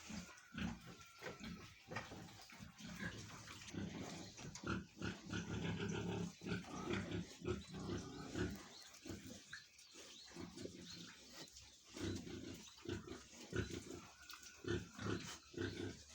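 Pigs grunting: a continual run of short, low grunts.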